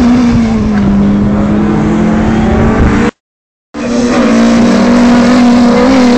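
Small hatchback rally cars' engines running hard, the engine note wavering up and down as they work through a tight tyre-marked course. The sound cuts out completely for about half a second a little past halfway, then a second car's engine is heard.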